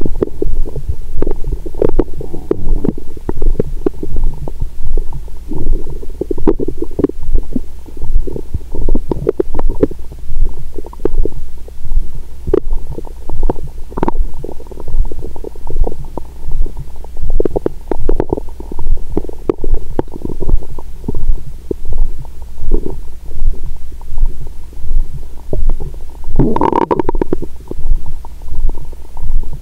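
Human stomach and intestines gurgling and rumbling, heard close up through a stethoscope pressed to the belly: digestion sounds after a meal. The gurgles run on without a break over a steady low beat about once a second, with one louder gurgle near the end.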